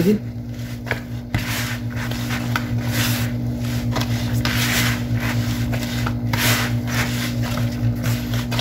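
Gloved hands kneading soft yeast dough in a plastic bowl: repeated rubbing strokes of the dough against the bowl, over a steady low hum.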